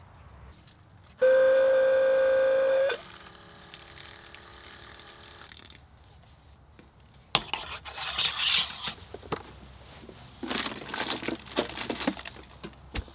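Dometic GO Hydration Water Faucet's small electric pump whining steadily for about two seconds, then a fainter, lower hum for a few seconds more. Later, rustling and clattering of a hand rummaging inside a plastic cooler, in two bursts.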